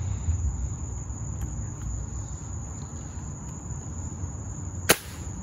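A single sharp crack from a .22-calibre air rifle shot near the end, over night insects trilling in a steady high tone.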